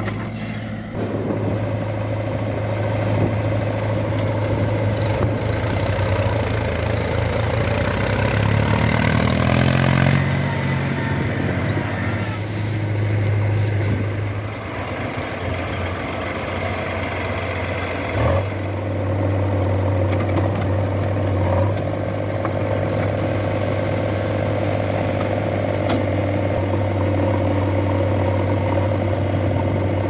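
Diesel engines of a JCB 3DX backhoe loader and a farm tractor running steadily with a deep hum. About eight seconds in, an engine revs up and climbs in pitch for a couple of seconds under load, then settles back.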